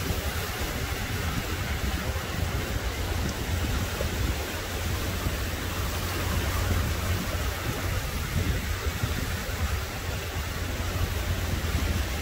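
Small waves breaking and washing up on a sandy beach: a steady hiss of surf over a low rumble.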